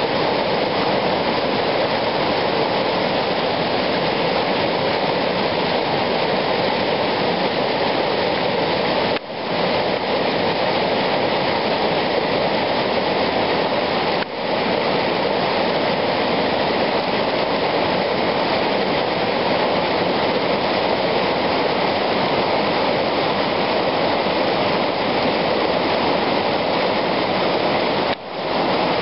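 Whitewater rapids of Lynn Creek rushing over boulders: a loud, steady rush of water, dipping briefly three times.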